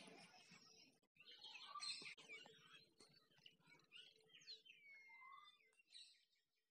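Faint birdsong: scattered short chirps and calls, with one clear whistle that slides down and then holds its pitch about five seconds in.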